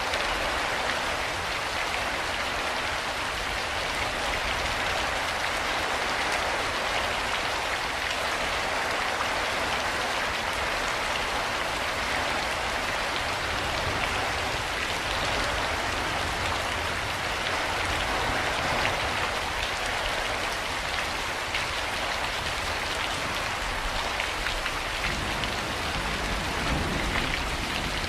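Steady rain falling on a surface: a continuous, even hiss of many drops with no pauses or gusts.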